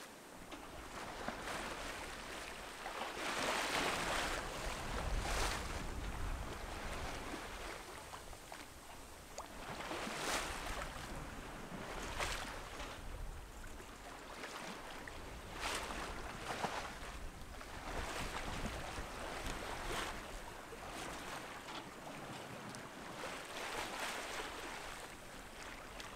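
Sea water rushing and splashing past a sailboat's hull under sail, swelling into a louder wash every few seconds, with low wind rumble on the microphone.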